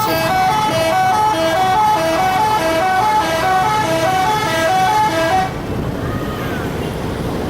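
A bus's multi-tone 'telolet' horn plays a fast, repeating melody of short notes. It cuts off about five and a half seconds in, leaving traffic noise.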